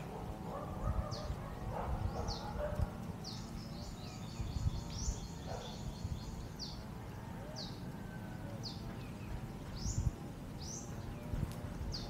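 Birds calling: short, high chirps that sweep downward, repeated about once a second, with a busier trilling patch about four seconds in. Underneath is a steady, gusty low rumble of wind.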